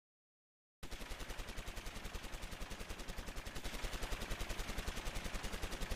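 Rapid automatic gunfire, a machine-gun sound effect: an even stream of shots, about nine a second, that starts suddenly about a second in and grows slightly louder.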